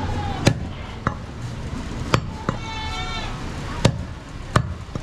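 Heavy butcher's knife chopping goat meat on a round wooden block: about six sharp chops at uneven intervals.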